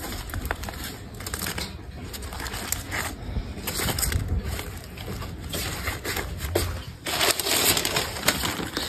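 Dry leaf wrappers of food parcels crinkling and crackling as a hand handles them on a wire grill over charcoal, with a denser burst of rustling about seven seconds in.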